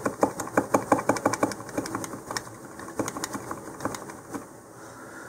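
Quick light clicks and taps of a hobby-knife handle working clay down inside a hollow plastic model-rocket nose cone, several a second, fewer and fainter over the last two seconds.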